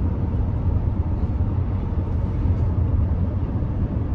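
Steady low rumble of road and engine noise inside the cabin of a moving pickup truck.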